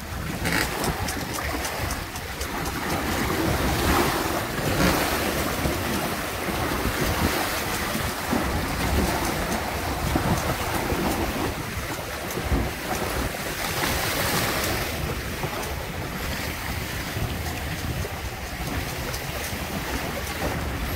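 Water rushing and splashing along the hulls of a Windrider 17 trimaran sailing through choppy water, with wind buffeting the microphone as a low rumble. The rush swells louder about four seconds in and again around fourteen seconds.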